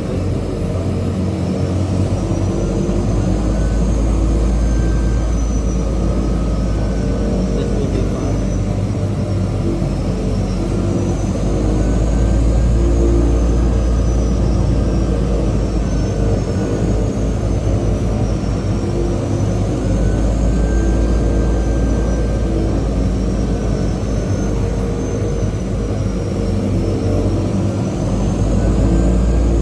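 De Havilland Canada DHC-6 Twin Otter floatplane's PT6A turboprop engine and propeller, heard from inside the cabin while taxiing on the water. A loud steady drone, with a high turbine whine that slowly wavers up and down in pitch.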